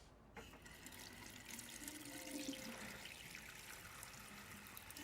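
A water tap turned on about half a second in, water running steadily into a sink.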